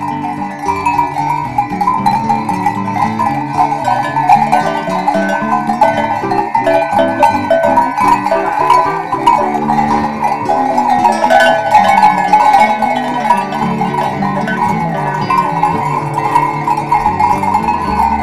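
Many goat bells clanking irregularly as a herd of goats walks, mixed with background music.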